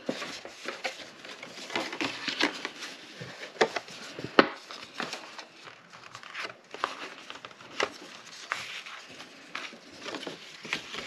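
Paper rustling and crinkling as it is shaped and folded by hand, in irregular small bursts with a sharp click a little over four seconds in.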